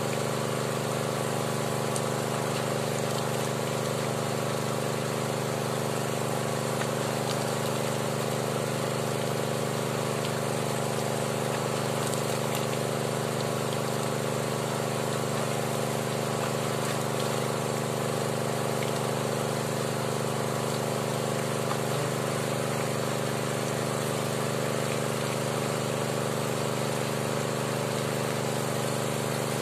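Small engine-driven water pump running steadily at one constant speed, feeding water through the hose into the hand-turned drill pipe of a well being bored.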